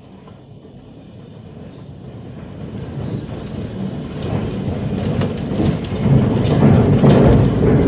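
Strong storm wind with a deep rumble, growing steadily louder throughout.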